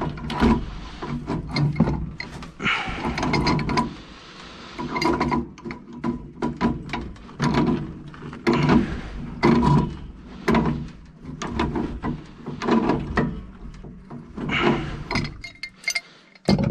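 Close-up handling and tightening noises on a threaded metal gas pipe connection: irregular clicks and knocks of metal parts and tools, with stretches of rustling from hands and sleeves near the microphone.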